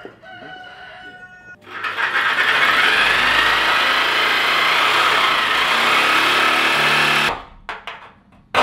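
A handheld electric power tool cutting into the edge of a steel reproduction truck fender, making a loud, steady noise for about five seconds. It stops abruptly and is followed by a few short scraping strokes of a hand file on the metal.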